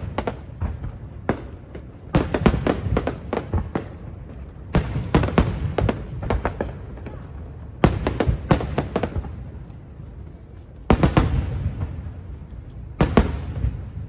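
Aerial fireworks bursting in volleys: clusters of sharp bangs, with a new volley about every two to three seconds.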